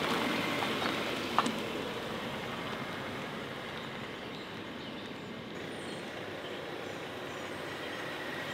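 Mercedes-Benz C-Class coupe driving past and up a driveway: steady engine and tyre noise that fades as it pulls away and grows a little again as it comes back toward the microphone. A single sharp click about a second and a half in.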